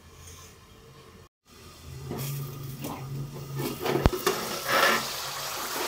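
Aluminium pot lid handled with a cloth and lifted off a pot of frying masala, with a sharp metallic click about four seconds in, over a low steady hum and faint sizzling.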